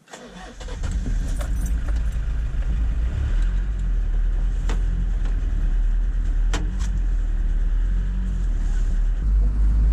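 1984 Dodge D50 pickup's engine idling, heard from inside the cab: a steady low rumble, with a few sharp clicks around the middle.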